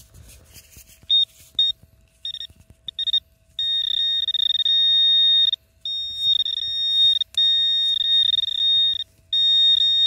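Metal-detector pinpointer sounding a high, steady beep: short on-off beeps about a second in, then long unbroken tones as it closes on a metal target in the dug soil.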